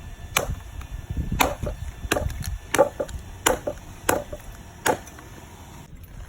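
A knife chopping through a sea grouper on a wooden chopping board: about seven hard strikes, roughly one every three-quarters of a second, with a few lighter taps between, stopping about five seconds in.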